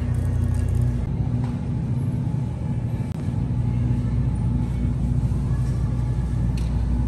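Steady low electrical hum and rumble of supermarket freezer cases running, with a faint tick or two from the glass door and packages.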